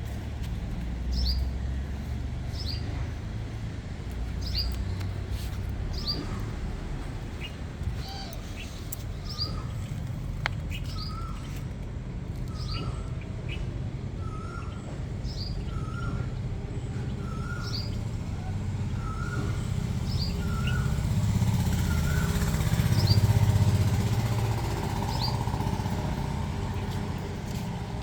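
Birds calling repeatedly: a short, high, falling chirp about every second and a half, joined in the middle by a lower repeated call. Under it runs a steady low rumble that swells after about twenty seconds.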